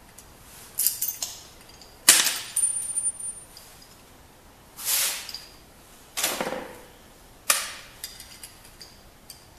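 Metal parts of a door knob lockset clicking and clacking as they are handled and fitted, five sharp knocks in all, the loudest about two seconds in with a brief ring.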